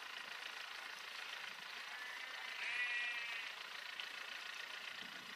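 A sheep bleats once, a single call lasting just under a second about halfway through, over a steady background hiss.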